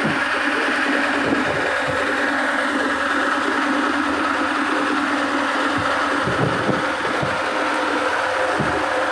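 Fishing boat's engine running steadily, heard from inside the wooden cabin as a constant low hum, with a few short low knocks scattered through.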